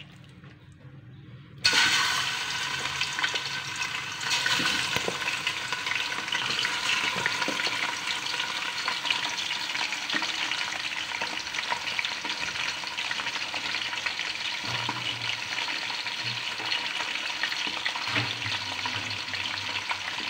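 Raw chicken pieces dropped into hot oil in a steel pot, the oil bursting into a loud sizzle about two seconds in, then frying steadily.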